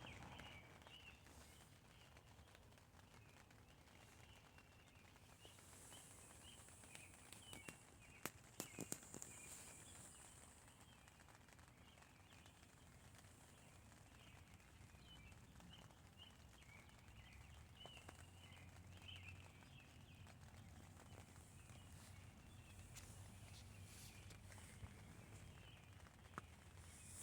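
Near silence: light rain on a tent, with faint high chirping calls throughout and a few sharp taps about eight to nine seconds in.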